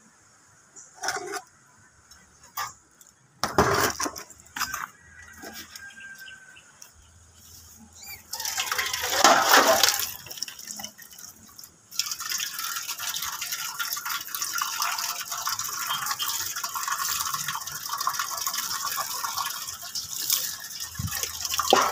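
Water spraying onto garden plants. A few scattered knocks come first, then a loud surge of splashing about eight seconds in, and from about the middle on a steady hiss of spray.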